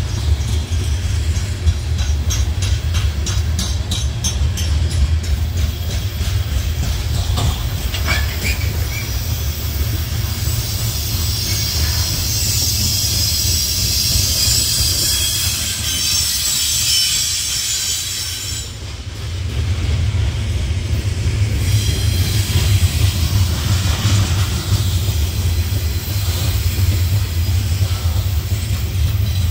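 Hopper cars of a long CSX freight train rolling past close by: a steady low rumble with wheels clicking over the rail joints in the first few seconds, and high-pitched wheel squeal rising in the middle.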